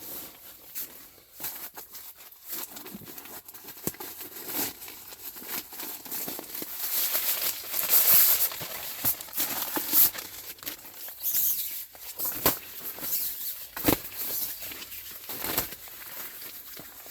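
Crinkling and rustling of a new inflatable sleeping pad and its packaging being handled and unpacked, with irregular scuffs and small clicks. The handling is louder and busier in the middle.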